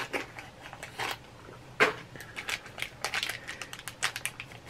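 A small cardboard mystery pin box and its packaging being opened by hand: an irregular run of short clicks, scrapes and crinkles, with one sharper snap a little under two seconds in.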